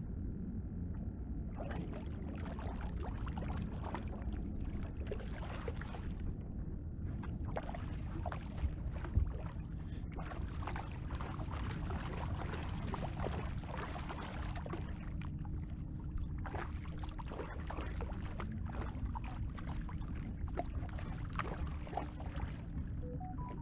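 Water lapping against a small fishing boat's hull with wind on the microphone, and a run of crackling splashes as a hooked shark thrashes at the surface beside the boat. A couple of sharper knocks come about nine seconds in.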